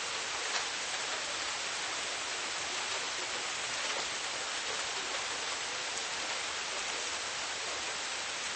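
Steady rain falling: an even hiss, with a few single drops ticking out now and then.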